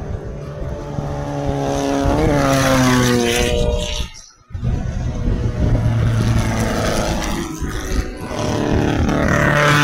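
Race car engines of the 1600 cc class running hard on a dirt track. One engine's pitch climbs, then drops off about two seconds in as the car passes. The sound dips briefly after four seconds, then another car's engine takes over, its pitch rising again near the end.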